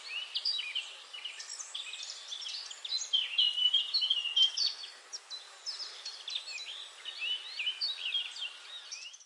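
Several wild forest birds calling at once, a dense mix of quick chirps and short whistled notes overlapping throughout, which cuts off abruptly at the end.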